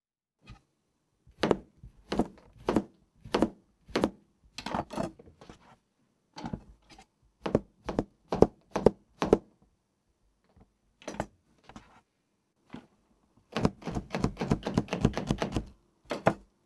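Chef's knife chopping cucumber and celery directly on an iPad screen covered with a shock-absorbing protector film: a thunk of the blade on the screen with each cut. Separate strokes come in groups of about one or two a second, then a fast run of rapid chops near the end.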